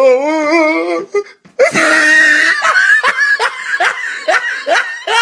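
Hard laughter: a high, wavering drawn-out cry, then after a short pause a loud burst of laughter that breaks into rapid pulses of about three a second.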